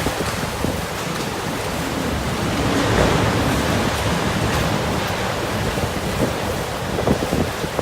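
Typhoon Jebi's storm wind gusting, with rain and wind buffeting the microphone; a gust swells about three seconds in.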